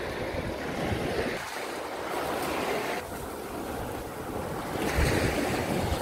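Small waves breaking and washing up a sandy shore, with wind buffeting the microphone; the wash swells louder about five seconds in.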